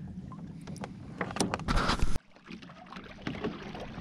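Water lapping and splashing against the hull of a Hobie Adventure Island sailing kayak, with small irregular splashes; the sound cuts off sharply about two seconds in, then similar water noise resumes.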